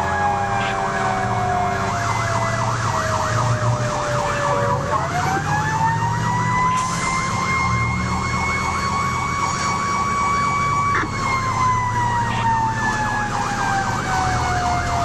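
Fire engine sirens heard from inside the cab while responding. One siren tone slowly falls, winds back up about five seconds in, holds high, then falls again from about eleven seconds. Under it a second siren runs a fast warbling yelp, over the truck's engine rumble.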